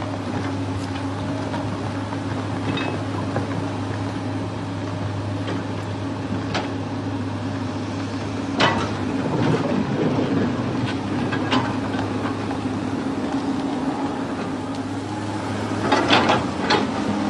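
Steady low machine hum with scattered sharp clicks and knocks, a louder knock about halfway through and a cluster of knocks near the end.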